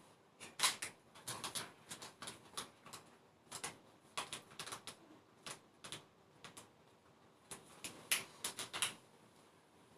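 Irregular light clicks and taps, some in quick clusters of two or three, with short pauses between.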